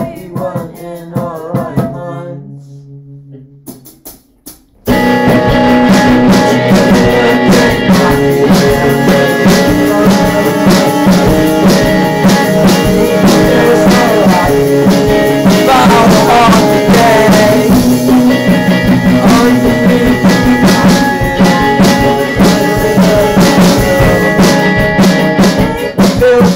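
Small band playing live: acoustic guitar with a drum kit. The music thins out and drops low for a few seconds, then the full band comes back in loudly about five seconds in and plays on with a steady beat.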